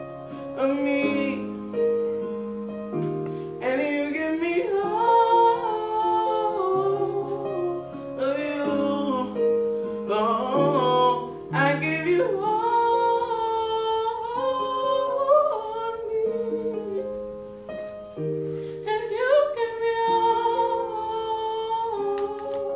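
A young man singing solo over a piano accompaniment, his voice gliding between notes above steady held bass chords.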